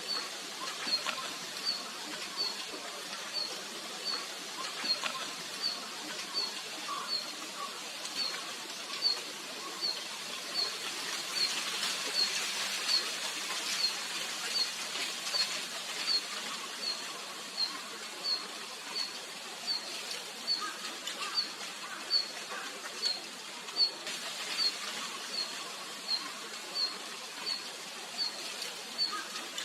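Red-flanked bluetail calling: a short, thin, high note repeated evenly about once every 0.7 seconds, with a few fainter lower notes among them.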